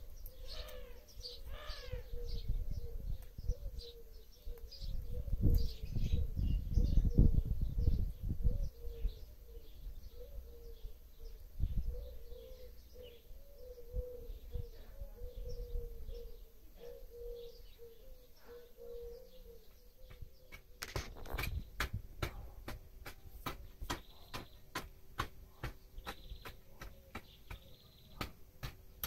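Small birds chirping in a garden, with gusts of wind rumbling on the microphone. About two-thirds of the way through, a run of sharp ticks sets in, about two a second.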